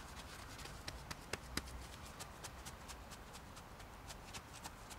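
Gloved hands and a trowel working sand-and-cement mortar around a sandstone edging stone: faint scraping with a scatter of small gritty clicks and taps, three louder knocks between one and two seconds in.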